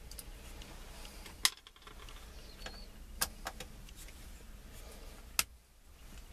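A handful of short sharp metallic clicks, about four, from a Torx driver and small parts while the turn signal switch screws are taken out of a Jeep Wrangler steering column. The loudest clicks come about a second and a half in and near the end.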